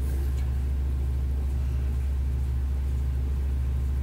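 A steady low hum with no change. Faint clicks near the start come from the plastic pistol crossbow frame being handled.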